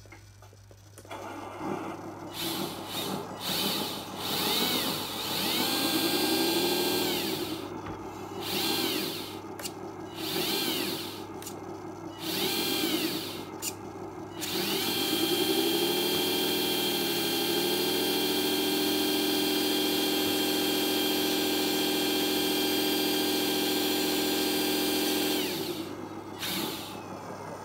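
Electric motor and metal gear train of a 1/14 scale RC tractor truck whining as the gearbox, differentials and cardan shafts spin unloaded with the wheels in the air. It is revved up and down several times, then held at a steady speed for about ten seconds before winding down.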